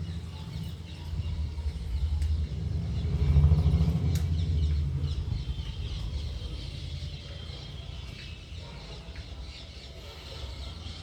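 A low vehicle-engine rumble that swells to its loudest about three to four seconds in and then slowly fades, as of a vehicle passing by, with faint bird calls behind it.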